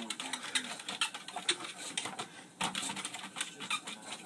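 An English bulldog's claws and paws tapping on a treadmill belt as it walks, in quick, irregular clicks.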